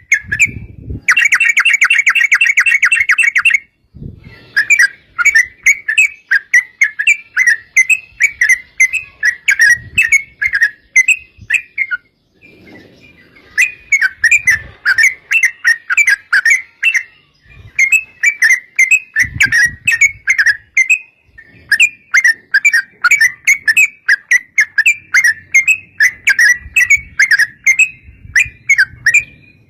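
Yellow-vented bulbul (trucukan) singing in long runs of rapid, bubbly chattering notes, broken by a few short pauses.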